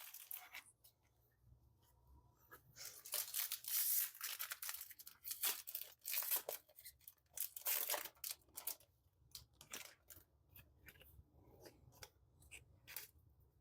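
Foil Pokémon card booster pack being torn open and crinkled: a run of short rustling tears for several seconds, then lighter, sparser ticks as the wrapper and cards are handled.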